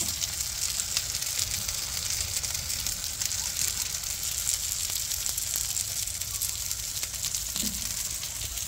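Butter-filled whole flounder sizzling on a grill mat over a hot grill: a steady hiss dotted with fine crackles, over a low steady rumble.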